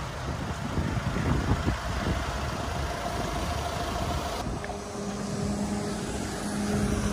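Tata Harrier SUV's diesel engine running as the car moves on a wet road. A steady low hum sets in about halfway through.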